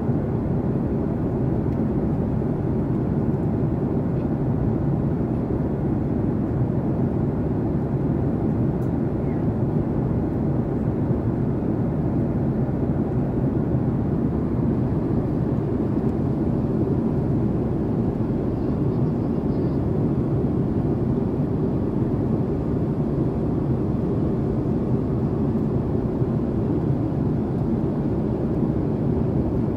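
Steady low rush of a Boeing 767-400ER's cabin noise at cruise altitude, heard from inside the economy cabin, unchanging throughout.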